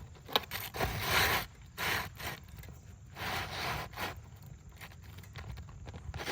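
Scraping on asphalt roof shingles in three or four short bursts, with a sharp click about a third of a second in, as a shingle is worked under the course above to clear a nail that was sticking up.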